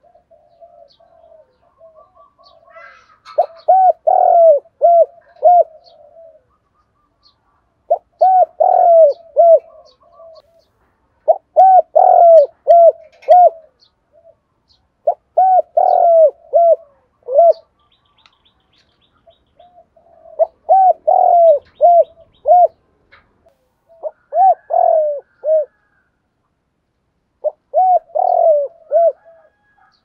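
Spotted dove cooing its song: seven phrases of several rolling, pulsing coos, each phrase about two seconds long and repeated every three to four seconds, with softer coos before the first phrase. It is the calling song of a caged decoy dove.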